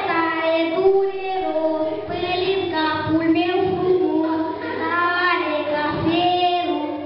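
A girl singing a melody into a microphone, one voice with long held notes.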